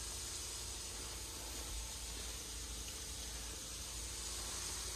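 Faint, steady sizzle of hot frying grease as a batch of battered walleye chunks fries in the pan.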